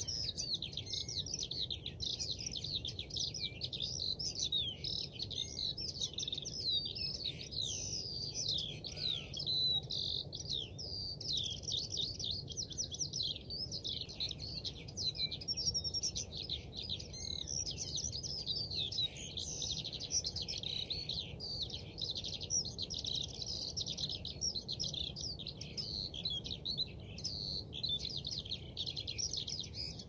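A flock of small songbirds chirping and twittering without a break, many short calls and trills overlapping.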